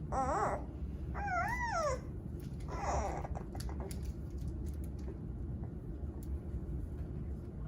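Newborn giant panda cub squawking three times in quick succession, high wavering cries with the middle one longest and bending up and down in pitch. After that only a steady low background hum.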